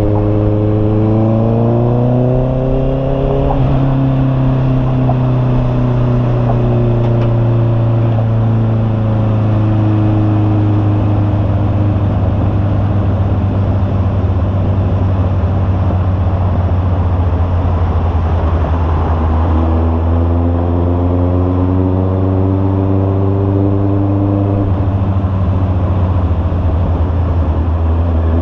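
Honda CB650R's inline-four engine running through an aftermarket Imba Pure muffler while riding. The exhaust note climbs in pitch over the first few seconds under acceleration, then eases down slowly and holds low. It climbs again about two-thirds of the way in and levels off, with a steady rush of noise under it.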